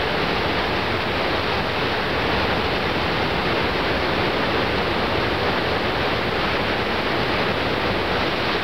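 Stormy ocean surf breaking on a beach: a steady, unbroken rushing noise of white water, with no single wave crash standing out.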